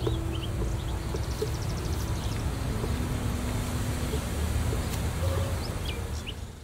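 Outdoor ambience: small birds chirping, with short high calls and a quick trill, over a steady low rumble. It fades out near the end.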